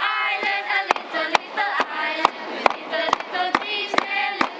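Young voices singing a melody together, with sharp claps keeping a steady beat about twice a second.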